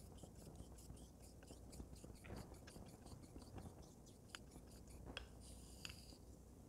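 A straight razor's steel blade is honed on a wet Japanese natural whetstone with a fine slurry, under just the blade's weight. It gives faint wet scraping strokes and many light ticks as the blade turns over on its spine.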